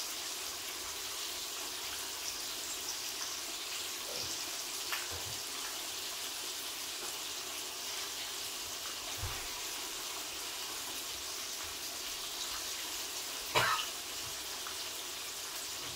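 Fish deep-frying in a pot of hot oil: a steady sizzling hiss with faint crackles. A single sharp clack sounds about three-quarters of the way through.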